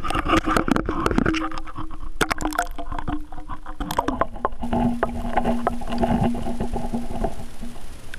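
Knocking and clattering in a small boat, many sharp knocks throughout, with a steady low hum for most of the time that dips slightly in pitch about four and a half seconds in.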